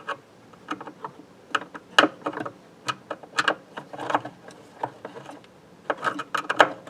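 Irregular clicks and light clatter of hand tools and parts being handled while the old power cord is disconnected inside an electro-mechanical pinball cabinet. The clicks are busiest about four seconds in and again near the end.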